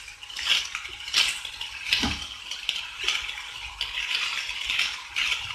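Wooden spatula stirring and turning cooked rice in a nonstick frying pan: irregular scraping and rustling with a few light knocks against the pan.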